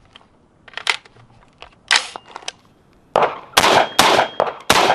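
AR-15 carbine firing a quick string of shots, about two to three a second, beginning about three seconds in. Two fainter sharp cracks come in the first two seconds.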